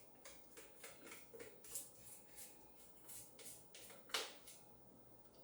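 Faint repeated scraping strokes of a utensil against a mixing bowl, about two or three a second, getting cornbread batter out, with one louder knock a little after four seconds in.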